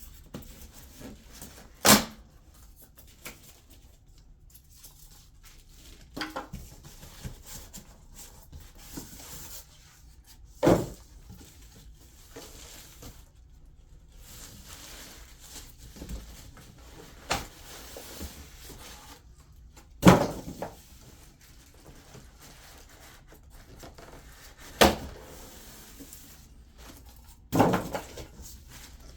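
Cardboard box and packing being handled while unpacking a countertop dishwasher: about five sharp knocks and thuds spread through, with light rustling and scraping in between.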